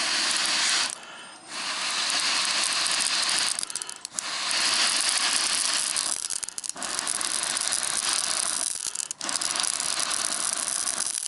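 Loud rushing of air blown onto a young wood fire in a small firewood grill, in four long bouts broken by short pauses.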